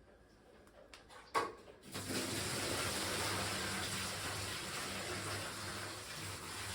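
A knock of the plastic bucket, then water pouring steadily out of a dehumidifier's water bucket as it is emptied.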